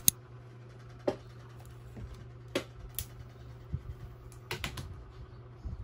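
Scattered sharp clicks and taps of a tablet and a folding stand being handled and set down on a desk, over a steady low hum.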